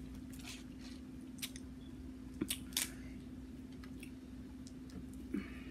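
Eating sounds of a seafood boil: a few scattered faint clicks and crackles as a boiled shrimp is chewed and its shell is peeled by hand, with a short soft rustle near the end, over a steady low hum.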